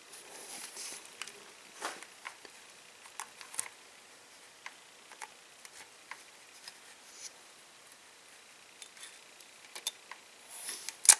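Small metallic clicks and light scrapes as the valve-lash adjuster screw on a rocker arm is turned by hand and a feeler gauge slides between the rocker and the valve stem to check the clearance, with a sharp click near the end.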